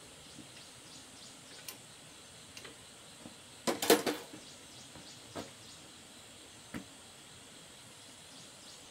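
Metal hand tool clanking against a small engine as it is worked on: a quick cluster of sharp knocks about four seconds in, with a few lighter clicks before and after.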